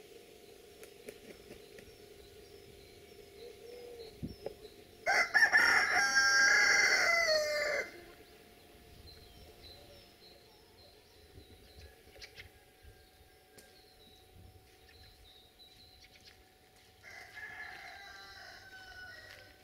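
Rooster crowing twice: one loud crow about five seconds in lasting about three seconds, and a fainter crow near the end. Small birds chirp faintly in between.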